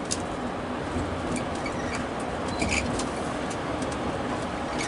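Steady engine rumble and road noise of a tour bus driving, heard from inside, with scattered light clicks and rattles.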